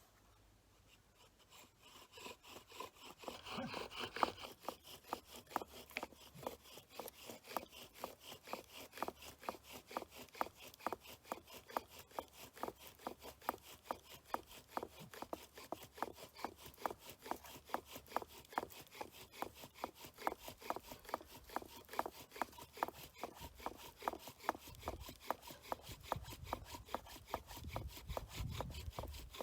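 Bow drill at work: a sage spindle spun back and forth by the bow in a sage hearth board, making a steady run of fast, even wooden rubbing strokes that starts about two seconds in. This is friction fire-lighting, with sage needing hard downward pressure to build a coal.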